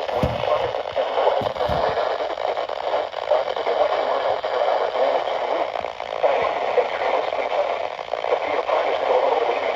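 Weather radio hissing with steady static from a weak or noisy signal, a few low bumps in the first two seconds.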